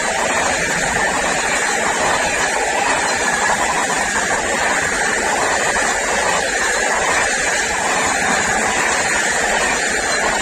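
SNCF Intercités Corail passenger train passing at high speed: a loud, steady rushing of wheels on rail and air as the coaches stream by.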